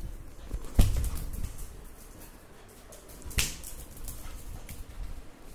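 A Labrador puppy scampering on a tiled floor: a couple of sharp knocks, one about a second in and another past three seconds, among lighter clicks of its paws and claws.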